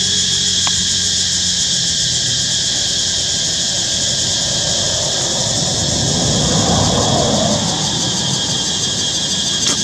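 A road vehicle passing: its noise swells about six seconds in and then fades, over a steady high-pitched buzz.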